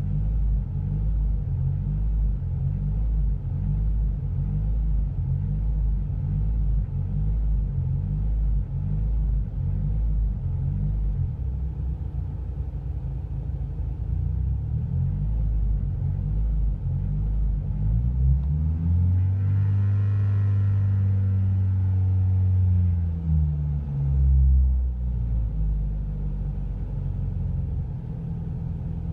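Renault Clio 172's 2.0-litre four-cylinder engine running unevenly at low revs, its note lumpy and stuttering. It is revved up about two-thirds of the way through, held briefly, then drops back with a short blip to the same uneven running. This is the misfire the owner gets between 1000 and 2000 rpm.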